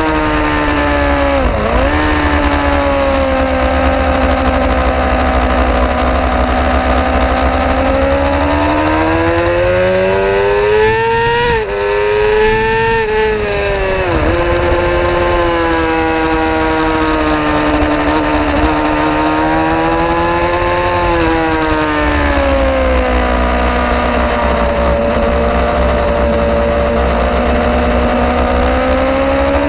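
Suzuki GSX-R 750 inline-four engine heard from onboard at racing speed, its pitch climbing and falling with the throttle and gear changes, with sharp breaks a couple of seconds in, about twelve seconds in and again about fourteen seconds in. Wind rumble on the microphone sits underneath.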